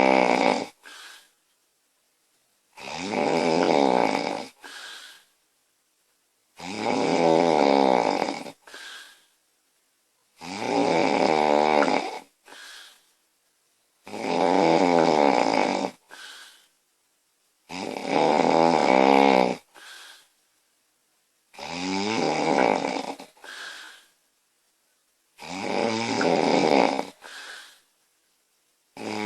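A woman snoring loudly in a steady rhythm, one snore every three to four seconds, about eight in all. Each snore is a pitched drone of under two seconds, followed half a second later by a short, fainter breath sound.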